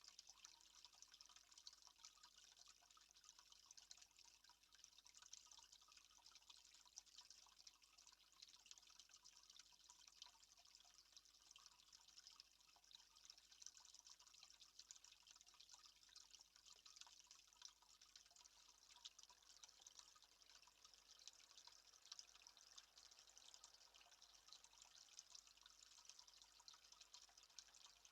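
Faint, steady trickle of water, with many fine dripping ticks over a soft hiss.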